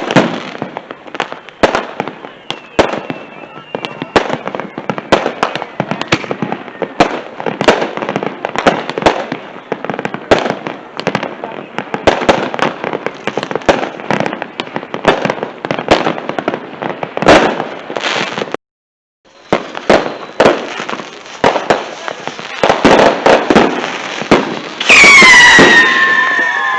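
Consumer fireworks going off in a dense run of crackling pops and bangs. Near the end a loud whistling firework screams, its pitch falling.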